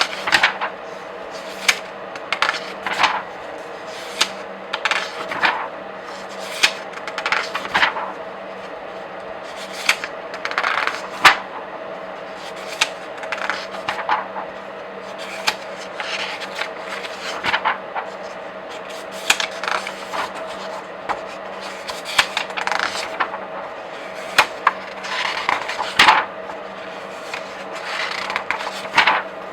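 Pages of comic books and graphic novels being flipped by hand: a run of quick, irregular paper swishes and flicks, some sharper than others, over a faint steady hum.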